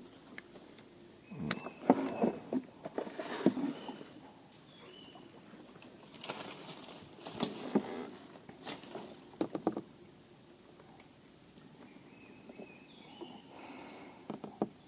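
Irregular knocks and rustling in several short clusters, with faint short chirps and a thin steady high tone in the background.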